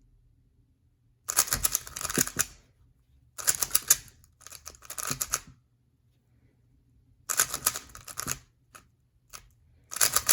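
A 3x3 Rubik's cube being turned quickly through a last-layer algorithm: fast runs of plastic clicking and clacking from the layers turning, several runs with short pauses between them.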